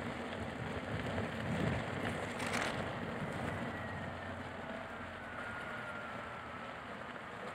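Electric unicycle rolling over packed snow: a steady hiss of tyre noise and wind on the microphone. A faint whine falls slowly in pitch through the middle, and there is one short click about two and a half seconds in.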